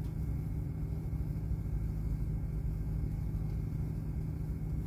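A steady low rumble with a faint hum in it, unbroken for the whole stretch.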